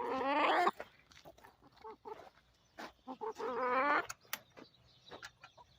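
Laying hens calling: two drawn-out, wavering squawks, one at the start and another about three and a half seconds in, with faint scattered taps between them.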